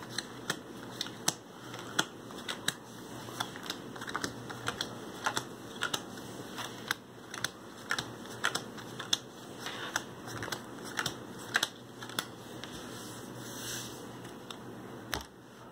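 Playing cards dealt one at a time onto a wooden tabletop, each card landing with a light sharp tap, about two a second, irregular, thinning out near the end.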